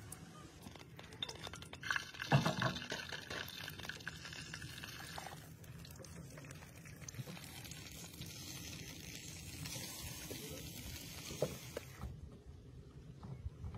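Quiet kitchen food-preparation sounds: handling of food and utensils, with a few light clinks of utensils against dishes, the sharpest about two seconds in and again near the end.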